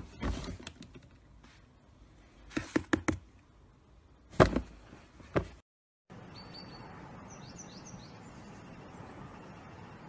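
A plastic swing-top kitchen bin knocking and clattering several times as a cat pushes through the lid into it. After a cut there is a steady outdoor background with a few short, high bird chirps.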